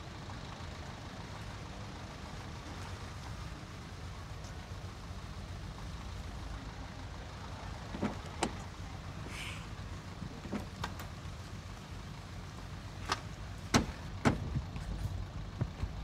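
Car engine idling with a low steady rumble, with a few sharp clicks and knocks in the second half.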